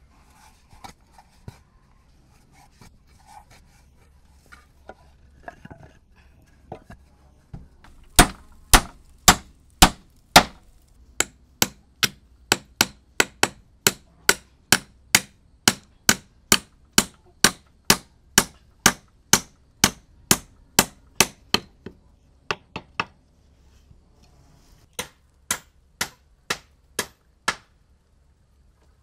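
A hand tool striking wood in a long run of sharp, evenly spaced blows, about two and a half a second. A short break follows, then a last handful of blows near the end. Faint scattered knocks come before the run starts.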